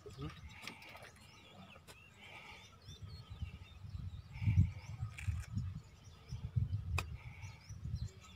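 A golf club striking the ball in a short chip shot: one sharp click about seven seconds in. Wind rumbles in gusts on the microphone, loudest about halfway through, and birds chirp throughout.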